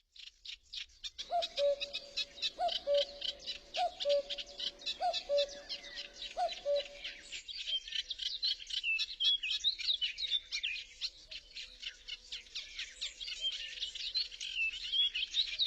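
Birdsong: a songbird chattering fast and high-pitched throughout, with a lower two-note falling call repeated about every second and a quarter until about seven seconds in.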